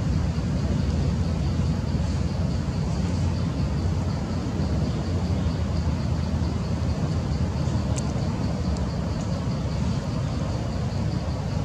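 Steady low rumbling background noise, with a faint high pulsing tone running along above it and a brief high chirp about eight seconds in.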